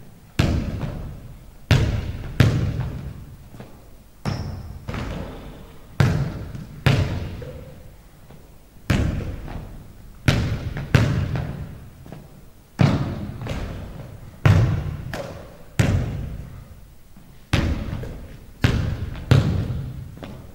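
Basketball bouncing on a hardwood gym floor during shooting practice: irregular thuds every second or two, each ringing out in the echo of the big hall.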